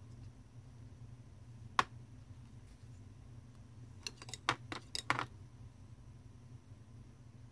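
Light clicks of a thin tool tapping against a small glass bowl of white glue: one click about two seconds in, then a quick run of clicks around four to five seconds in, over a low steady hum.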